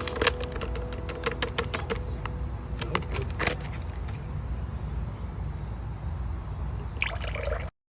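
Irregular light clicks and knocks of kitchen utensils during food preparation, over a steady low rumble.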